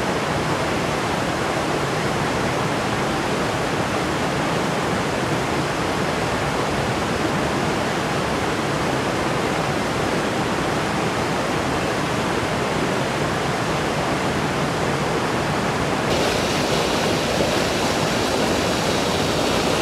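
Waterfall rushing steadily, heard from just above its brink. About sixteen seconds in, the rush gets slightly louder and brighter.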